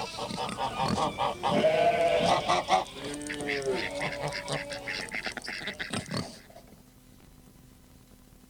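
Farmyard sound effect: farm animals calling over one another, several arching calls of different pitches, cutting off abruptly about six seconds in and leaving only a faint hum.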